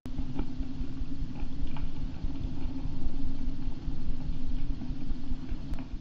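Steady low rumbling water noise picked up through an underwater camera housing, with a few faint clicks.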